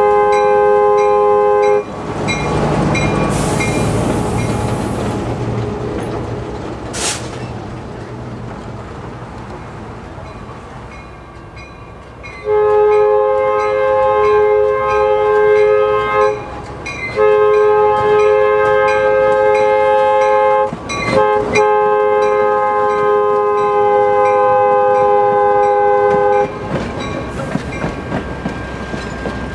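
Diesel locomotive's multi-chime air horn: a blast that stops about two seconds in, then rumbling train noise, then three long blasts with short breaks from about the middle on.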